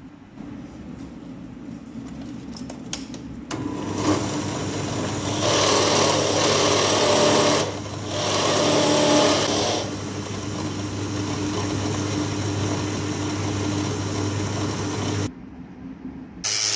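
A small electric power tool's motor running steadily. It grows louder and harsher twice for about two seconds each, stops about fifteen seconds in, and starts again near the end.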